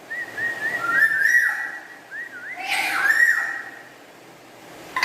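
Black-capped lory whistling: a run of short, arching whistled notes, broken by two louder, harsher calls about a second in and near three seconds in.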